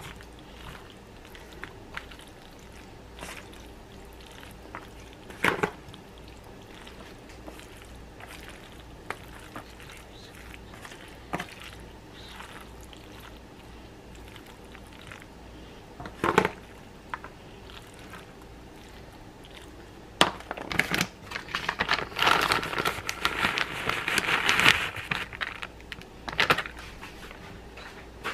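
Plastic spoon scraping and knocking against a disposable aluminium foil pan as macaroni and cheese is stirred: scattered clicks and scrapes, then a longer run of crinkling and crackling about two-thirds of the way in.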